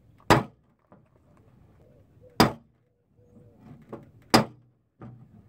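Three sharp metallic knocks about two seconds apart: a hammer striking the sheet-metal skin of a car door from the inside to push out a dent.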